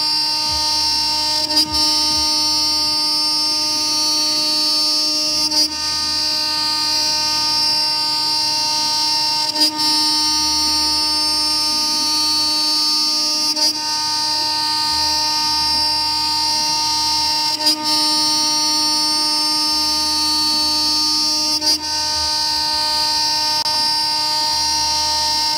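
CNC router's 2.2 kW spindle milling a pocket in 20 mm aluminium plate with an end mill: a steady high whine of spindle and cut. A brief break in the sound comes about every four seconds, and a low hum comes and goes every couple of seconds.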